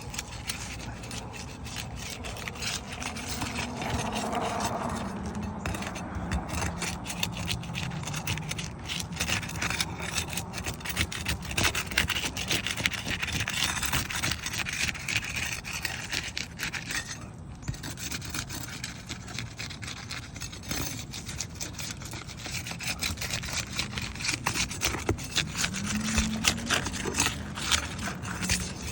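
Asphalt shingles being pried up and unsealed: a tool scraping and rubbing under the tabs to break the adhesive seal strips, with many small clicks and crackles as the shingles lift.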